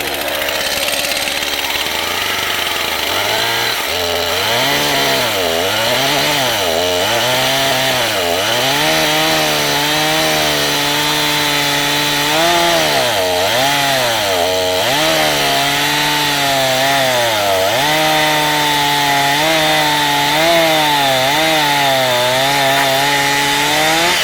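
Stihl MS 251 C two-stroke chainsaw running just after a cold start. It idles for about three seconds, is revved up and down repeatedly, and from about nine seconds in is held at high speed, its pitch dipping again and again under load as it cuts through a thick, hard piece of wood.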